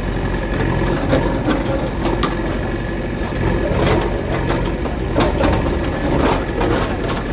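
Heavy diesel engine of a demolition bulldozer running steadily, with scattered knocks and clatter through it.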